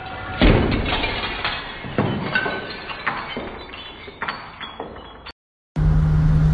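A few crashes of small things falling onto furniture and breaking, with glassy clinks and rattles. The loudest comes about half a second in, with further crashes near two and three seconds and lighter clinks after. The sound cuts off abruptly, and after a brief gap a steady vehicle engine hum begins.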